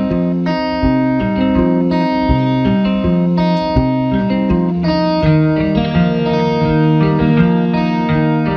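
Background music: a guitar-led instrumental with changing chords over a steady beat.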